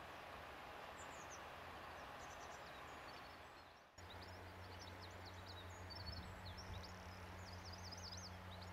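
Faint outdoor ambience of small birds chirping and twittering over a steady hiss. The sound drops out briefly about four seconds in and resumes with a low steady hum underneath.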